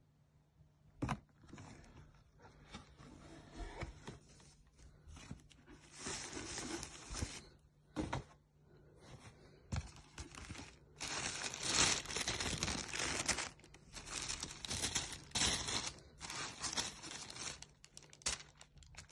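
Tissue paper in a shoe box being handled and unfolded by hand: irregular bursts of crinkling and rustling, loudest in the second half, after one sharp knock about a second in.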